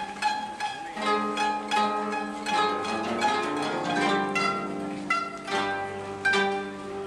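Koto, Japanese long zithers, played as an ensemble: a steady flow of plucked notes that ring on, several strings sounding together.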